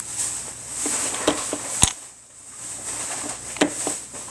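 Plastic Lego bricks clicking and knocking as they are pried apart by hand, with one sharp snap a little under two seconds in.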